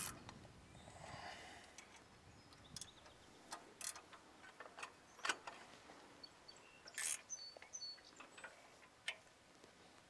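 About a dozen sharp, irregular clicks and taps from hands working the clamp of a Tilmor spyder cultivator disc on a two-wheel tractor toolbar while its angle is set and its bolt tightened.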